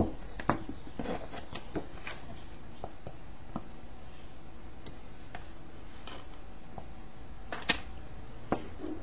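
Scattered light taps and clicks of a circuit board and soldering iron being handled on a desk, over a low steady background; the sharpest clicks come right at the start and about three quarters of the way through.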